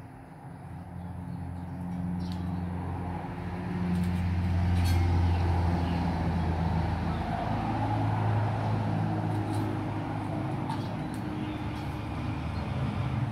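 A motor vehicle's engine running nearby as a low, steady drone that grows louder about a second in and holds, its pitch shifting up slightly about halfway through.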